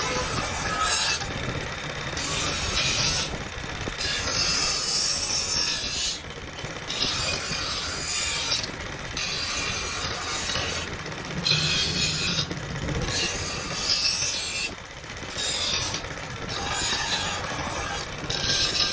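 Hand filing on the cleaver: a long run of rasping strokes, each lasting about one to two seconds, with short breaks between.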